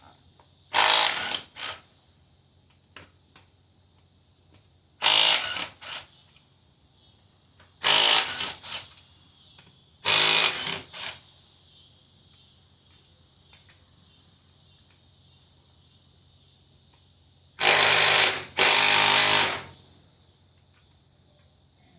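Impact gun run in short bursts on bolts during the engine teardown: four brief bursts, then a longer double burst near the end.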